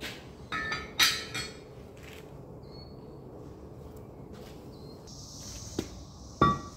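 Several hammer blows on a metal Tigercat skidder axle housing about a second in, followed near the end by a sharp metallic clank that rings briefly. A steady faint high hiss comes in over the last seconds.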